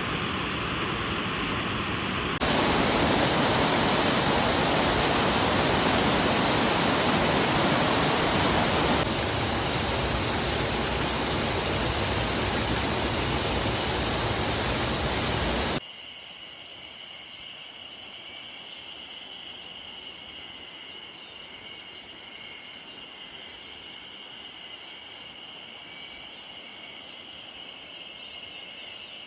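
Waterfall rushing with a steady, loud roar that shifts abruptly in level a couple of times, then cuts off suddenly about 16 seconds in. A quieter background with a steady high-pitched insect chirring follows.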